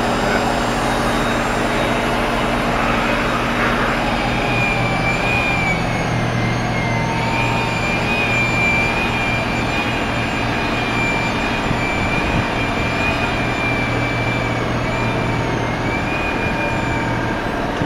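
Street traffic noise from a jam of idling vans and trucks: engines running steadily under a continuous low hum. From about four seconds in until near the end, a high, slightly wavering whine runs over it.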